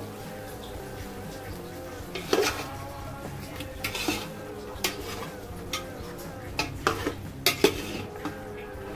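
A metal ladle stirring chicken pieces in an aluminium cooking pot, with irregular clinks and scrapes as it knocks against the pot's sides, coming thicker toward the end.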